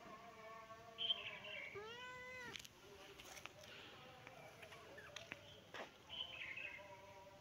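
A kitten meowing once, a short call that rises and falls in pitch about two seconds in. A brief high chirp comes just before it, and another near the end.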